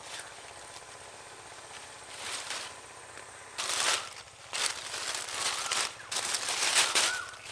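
Pointed gourd vine leaves rustling and crackling as a hand parts them and picks the gourds. The rustling comes in several short bursts from about two seconds in.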